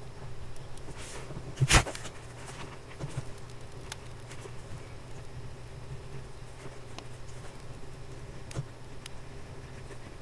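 Fine steel-nib fountain pen writing on paper: faint scratches and light ticks from the strokes, with one sharp knock about two seconds in.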